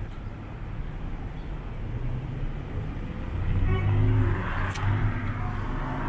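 Town street traffic: a car driving past, its engine hum and road noise rising and fading, loudest about four seconds in.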